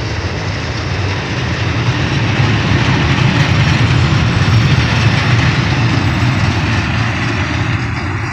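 Freight train of tank wagons rolling past close by: a steady rumble of wheels on rails, loudest about halfway through and easing off near the end as the last wagons go by.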